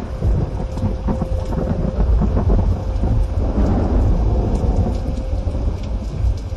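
Loud, low rumbling noise that rises and falls, with a faint steady hum.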